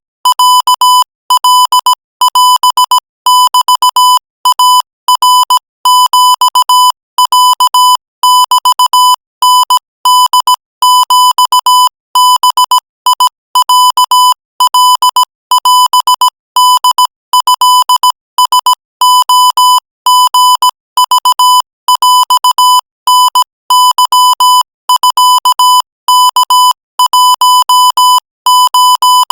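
Morse code sent at 20 words per minute as a single steady high beep keyed on and off, in short dots and longer dashes with gaps between letters and words. The beep has a slightly buzzy edge.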